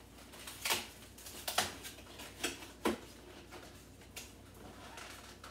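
A few light knocks and clinks, about five of them within three seconds, as eggs are set into a pot.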